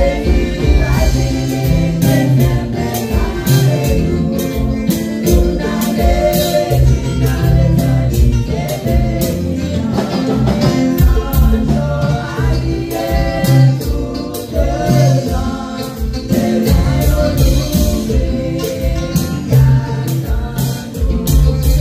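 A group of women singing a Haitian Creole gospel song together through microphones, over an accompaniment with a strong bass line and a steady beat.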